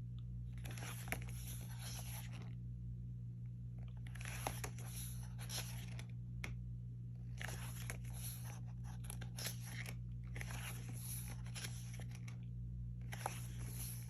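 Glossy paper pages of an album photobook being handled and turned, with a papery rustle about five times, each lasting a couple of seconds, and a few light clicks. A steady low electrical hum runs underneath.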